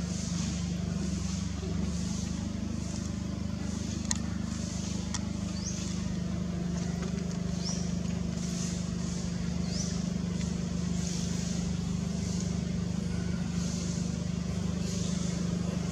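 Steady low motor hum, like a vehicle engine running, under a high insect buzz that swells and fades about once a second. Faint short chirps are scattered through it, with two sharp clicks about four and five seconds in.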